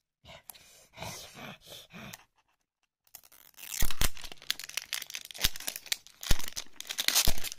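Foil or plastic blind-box packaging crinkling and tearing as it is pulled open. It starts about three seconds in, with many sharp crackles.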